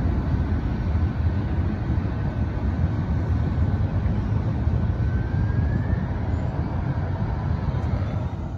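Norfolk Southern diesel freight locomotives running with a steady low rumble. A faint thin squeal rises briefly about five to six seconds in.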